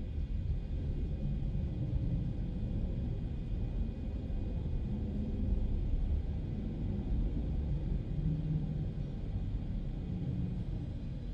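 Machinery of a mechanical multi-storey car park running as the car pallets move through the lift shaft: a steady low rumble that eases off right at the end.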